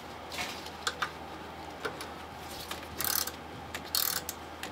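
Scattered light clicks and a few short scraping rustles of hand work at a lower coolant hose and its metal bracket under a car's hood, over a low steady hum.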